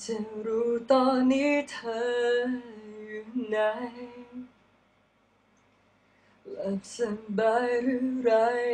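A young man singing a slow ballad in Thai, unaccompanied: one sung phrase that ends about halfway, a pause of about two seconds, then the next phrase.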